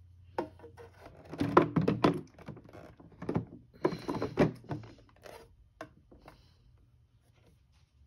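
Plastic knocks and thunks from a Mainstays humidifier's housing and water tank being handled, in two busier clusters, the first about a second and a half in and the second near the middle, with scattered single knocks after.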